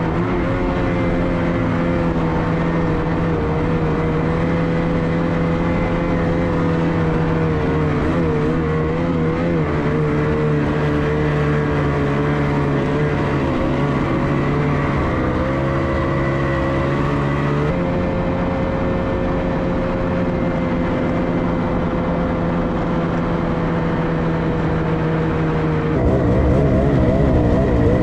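Snowmobile engine running steadily under way along a snowy trail, its pitch wavering slightly. The engine note shifts abruptly a couple of times and gets louder and rougher near the end.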